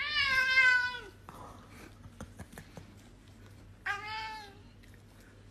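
Long-haired tabby cat meowing twice: a long, loud meow at the start that drops in pitch as it ends, and a shorter meow about four seconds in.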